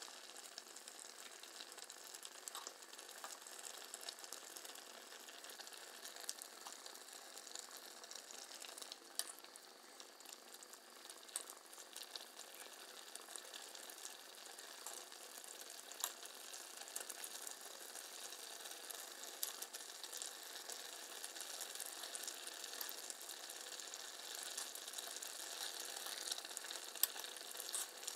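Pan of chicken innards simmering in a thin chilli gravy, sizzling and bubbling with many small crackling pops, getting a little louder toward the end.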